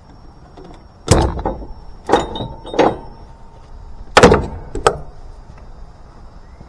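Five sharp knocks and clanks, the loudest about a second in and another about four seconds in, some leaving a brief ringing.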